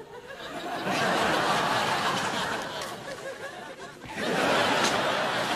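Sitcom studio audience laughing. The laughter swells over the first second, eases off around four seconds in, then rises again in a second wave.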